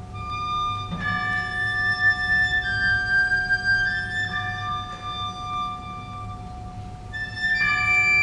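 Wind band playing a slow passage: a held chord with a high, flute-like melody moving above it, swelling in loudness about a second in and again near the end.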